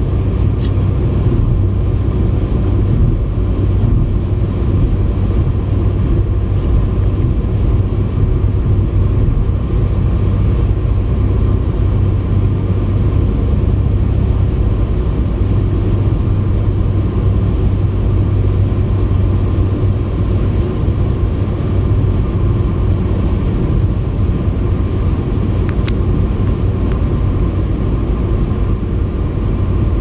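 Steady low rumble of a car driving at highway speed, heard inside the cabin: road and tyre noise with the engine, and a few faint ticks.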